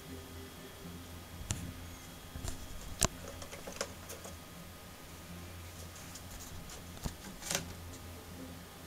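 A kitten's claws scratching and scrabbling against a cardboard box in scattered clicks, busiest about three seconds in and again with a louder scuffle near seven and a half seconds as it climbs out. A low steady hum runs underneath.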